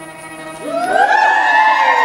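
Audience of several voices whooping in cheers, their pitches sliding up and then down and overlapping, starting just over half a second in and louder than the belly-dance music with its held notes underneath.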